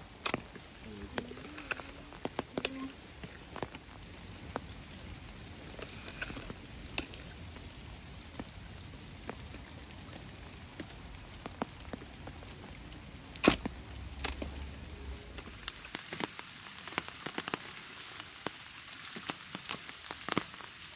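Steady rain with drops pattering and dripping at irregular moments, and one sharp click about two-thirds of the way through. Over the last few seconds rain falls more densely on the surface of a pond, a brighter, busier patter.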